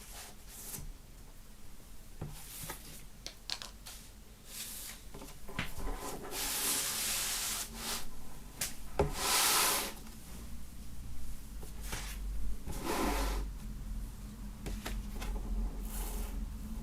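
Vinyl record packaging being handled: paper and cardboard sleeves sliding and rubbing against each other in several long swishes, with scattered light taps and clicks.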